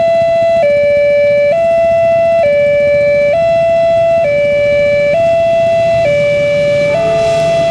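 Railway level-crossing warning siren sounding a two-tone electronic hi-lo alternation, switching pitch a little under once a second. A rushing noise swells near the end.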